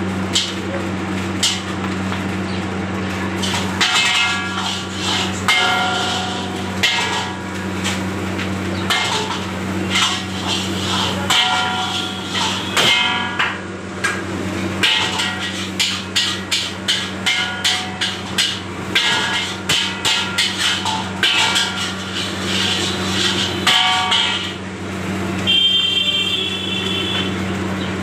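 A metal ladle repeatedly striking and scraping a steel wok as rice is stir-fried, each hit ringing briefly, with the clanks coming fast and steady for long stretches. A steady low hum runs underneath.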